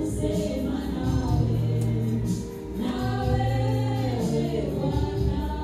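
Background music with a choir singing held notes over a steady bass line.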